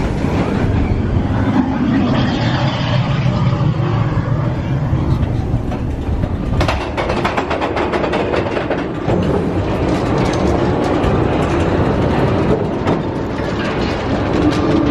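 Mine-train roller coaster cars rumbling along the track. About seven seconds in, a rapid, dense run of clicks starts.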